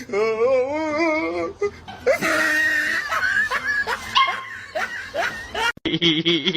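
A dog vocalizing with a wavering pitch, mixed with people laughing; the sound breaks off abruptly near the end as a different clip begins.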